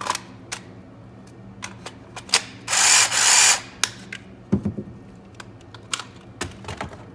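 Plastic clicks and knocks of a battery and adapter being handled, with a cordless power tool triggered once near the middle for a short rushing burst under a second long.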